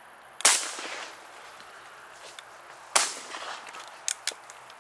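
Two shotgun shots about two and a half seconds apart, each trailing off in a short echo. Two sharp clicks follow near the end.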